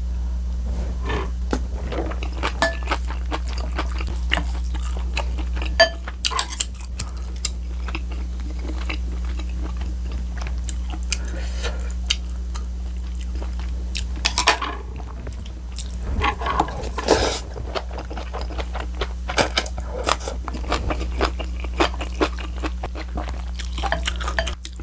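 Close-miked eating sounds: a person chewing and crunching kimchi-type food, with moist crackles and bites throughout and occasional clinks of cutlery or dishes. A steady low electrical hum runs underneath.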